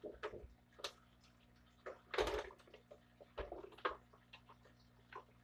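Faint, scattered clicks and knocks at irregular intervals, the loudest a little over two seconds in, over a steady low hum.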